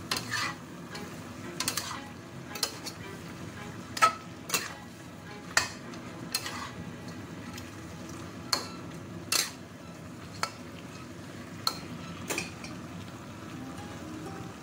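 Spatula clanking and scraping against a wok over a dozen times, at an irregular pace, as chicken feet in sauce are stir-fried over a steady sizzle.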